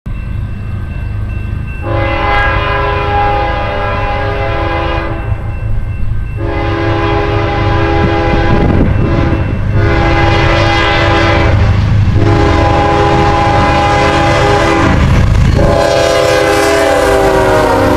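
Lead diesel locomotive's air horn, a GE ES44AC, sounding four long blasts as the stack train approaches, over the low rumble of its engines and the train on the rails. The horn's chord drops in pitch near the end as the locomotive passes.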